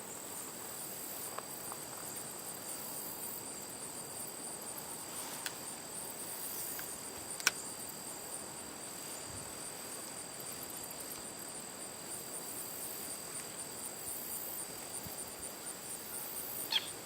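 Steady high-pitched insect chorus, crickets trilling in an even pulsing rhythm, with a single sharp click about seven and a half seconds in.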